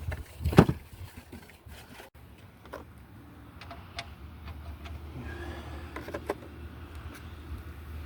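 A single loud thump about half a second in, then scattered light clicks and clinks of hand tools over a steady low rumble.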